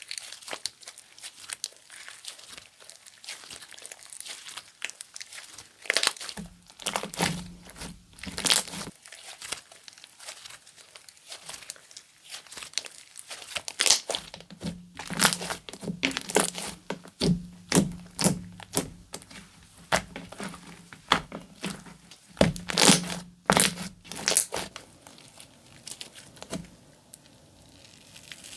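'Beef Soup' slime being squeezed, stretched and folded by hand, giving quick sharp clicks and pops from trapped air. The pops come in two louder spells, with quieter handling between and after them.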